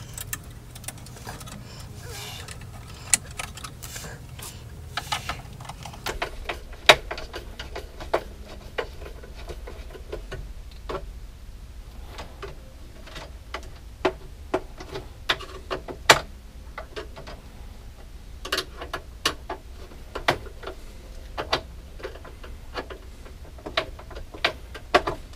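Irregular small metallic clicks and scrapes of a screwdriver turning and seating a terminal screw on a breaker panel's bus bar, clamping down a bare ground wire, over a faint low hum.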